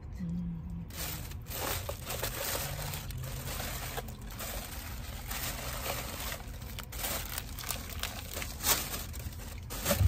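Paper takeout bag crinkling and rustling as it is opened and rummaged through, inside a car, with a low steady hum underneath.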